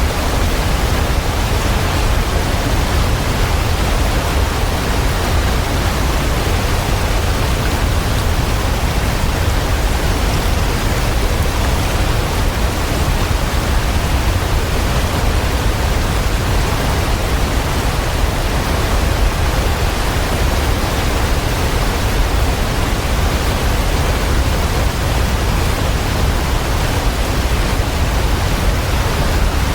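Waterfall: a steady, unbroken rush of falling water, heaviest in the low rumble.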